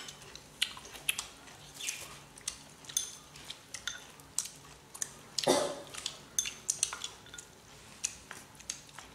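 Table clatter at a meal: chopsticks tapping and clinking against porcelain bowls and a metal tray, many light clicks at irregular intervals, with one longer, louder rustle about five and a half seconds in.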